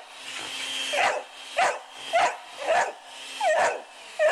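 Wheaten Terrier barking repeatedly, about six barks, over the steady whine of a running electric mixer. The mixer stops near the end.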